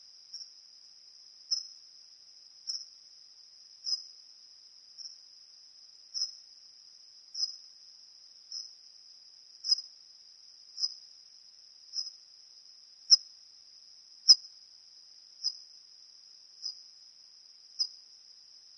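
Bat calls from a sound-effects track: a steady high-pitched buzz with a sharper squeak about every 1.2 seconds. Two squeaks about two-thirds of the way through are the loudest.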